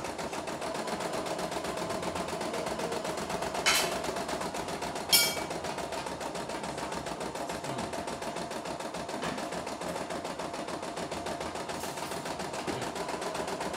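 CNY E960 computerized embroidery machine stitching steadily, a fast even needle rhythm. Two sharper clicks stand out about four and five seconds in.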